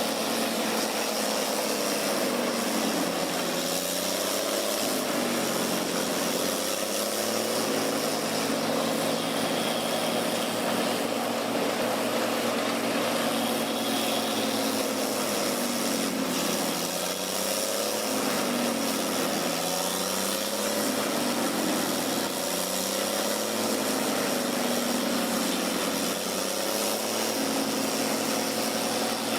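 Wood chipper's engine running hard and steadily, its pitch sagging and recovering in slow waves every few seconds as it takes wood, over a constant chipping and grinding noise.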